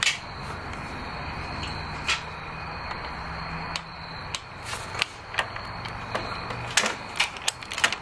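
Ratchet of a click-type torque wrench clicking as a spark plug is tightened into a motorcycle engine: single clicks a second or so apart, then a quicker run of clicks near the end, over a steady low hum.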